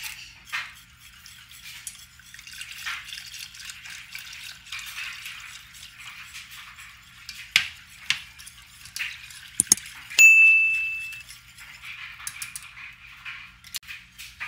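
Rustling foil wrappers and scraping, with sharp clinks against a metal saucepan of béchamel, then a wire whisk stirring near the end. About ten seconds in, a single steady electronic beep lasting about a second, from the cooktop's touch controls as the ring is switched down.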